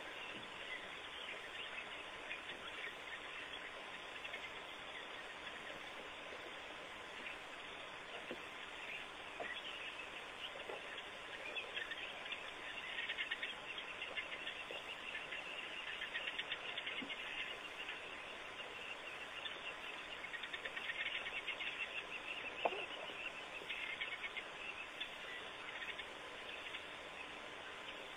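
High, rapid chirping and twittering animal calls over a steady hiss and a faint constant hum, thickest in the middle, with a few short lower falling calls, one standing out near the end.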